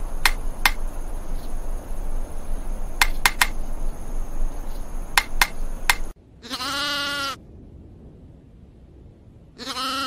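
Pileated woodpecker pecking at a tree trunk, sharp knocks in twos and threes every couple of seconds over a rustling background. Then a goat bleats twice, each bleat about a second long, the second starting near the end.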